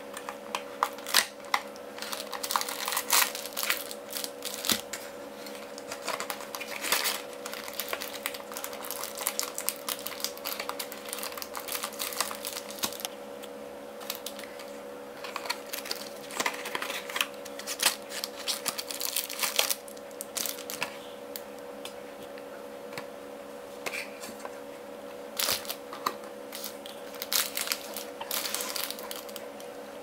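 Cardboard box and clear plastic bags being handled and unpacked: irregular crinkling, rustling and small clicks, over a steady low hum.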